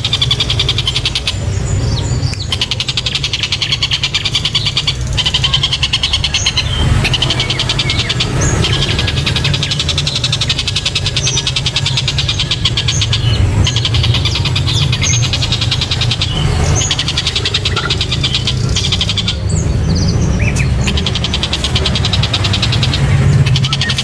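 Oriental dollarbird calling in long bouts of fast, repeated chattering notes, broken by short pauses every few seconds, over a steady low rumble.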